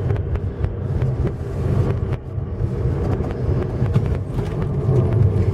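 A VAZ's 1.6-litre eight-valve engine running under way in second gear, heard from inside the cabin as a steady low rumble, with road noise and scattered clicks and knocks.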